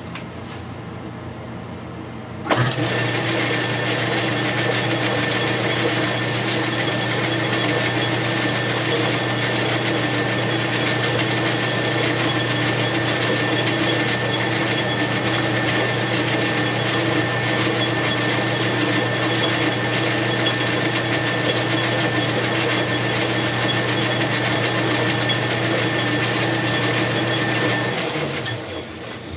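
Metal lathe switched on, its motor and gearing running at a steady hum with a thin high whine. It is switched off near the end and winds down.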